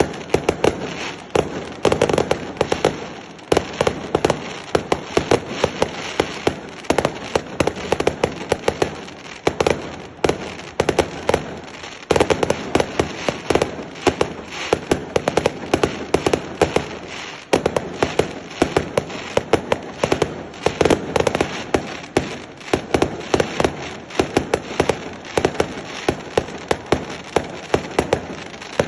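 Firecrackers going off in a rapid, continuous rattle of sharp bangs and crackles, several a second, with no break.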